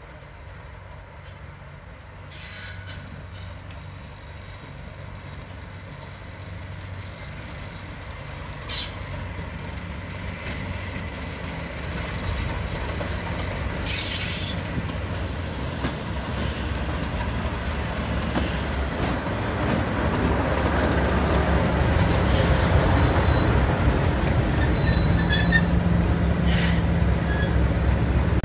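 English Electric Class 37 diesel-electric locomotive's V12 diesel engine running as the loco approaches slowly, its low rumble growing steadily louder as it draws close. A few short high squeals and hisses sound over it.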